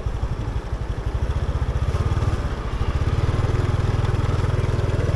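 Motorbike engine running steadily while riding along a road, with an even pulsing rumble that grows louder about three seconds in.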